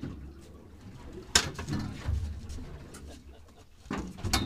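Steady low rumble with a sharp knock about a second and a half in and more knocks near the end, like hard things striking on a boat deck.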